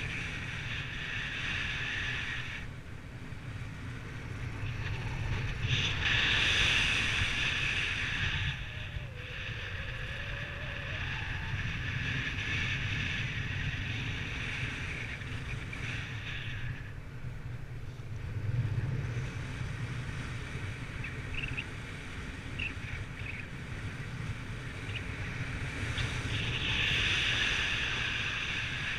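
Wind rushing over the microphone in flight: a steady low rumble with a hissing rush on top, which swells louder a few seconds in and again near the end.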